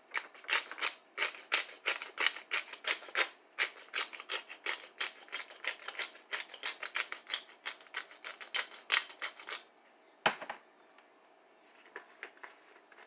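Hand pepper grinder twisted over a pot, cracking black peppercorns in a quick run of gritty clicks, about four a second, for nearly ten seconds. A single sharp knock follows, then a few faint clicks near the end.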